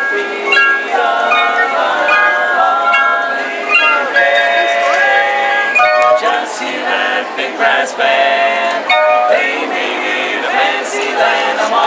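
A barbershop quartet playing a melody on hand-held sets of tuned metal chimes. Each man shakes or strikes his set for its notes, and the notes ring on and overlap in quick steps.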